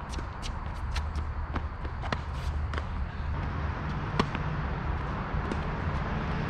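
Tennis ball bouncing on a hard court several times, then the sharp crack of a racket striking a serve about four seconds in, over a steady low rumble.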